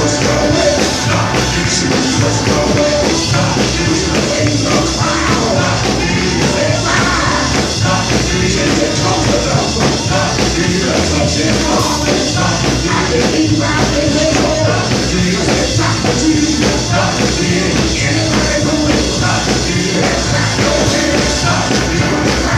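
Live gospel music played loud through a church PA: a man sings into a microphone over a full band, with the congregation clapping along.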